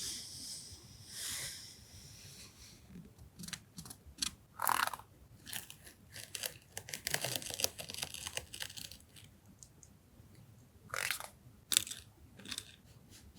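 Paper and plastic stationery packaging rustling and crinkling in irregular bursts as it is handled and unpacked, with a few light taps.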